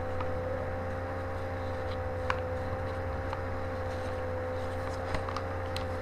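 A steady hum holding one mid-pitched tone over a low drone, with a few faint ticks of paper being handled as it is folded.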